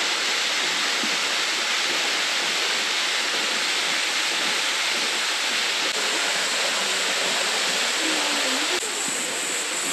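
Steady rush of flowing water, an even hiss with no breaks, dipping slightly near the end.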